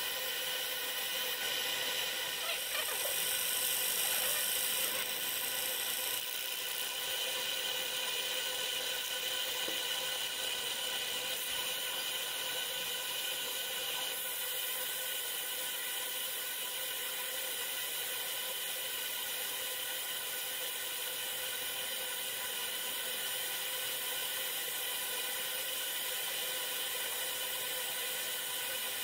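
Steady machine noise in a laser-marking workshop: an even hiss with several constant whining tones. It is a little louder and brighter for a few seconds near the start.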